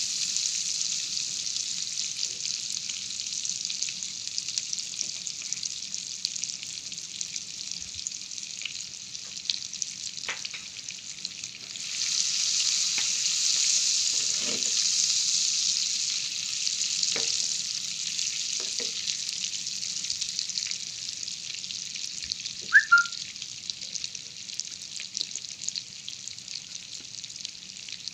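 Butter melting and sizzling in a hot pan: a steady high hiss that swells louder for a few seconds partway through, with a few faint clicks. Near the end a brief high chirp stands out as the loudest sound.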